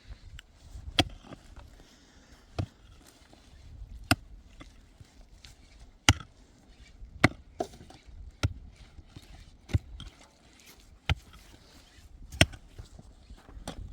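Repeated sharp chopping blows, about ten of them, one every second or so in an uneven rhythm.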